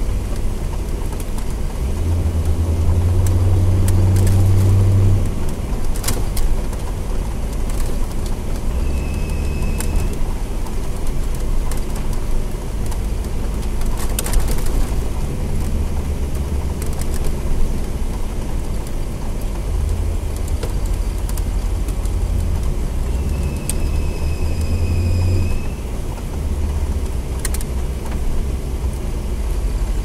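Pontiac Trans Am KITT replica's engine running on the move, heard inside the cabin, its rumble swelling and easing with the throttle, with a few sharp clicks. Twice, about a third of the way in and again near the end, a short high squeal rides on a rise in revs: the fan belt squealing, the abnormal noise this car has.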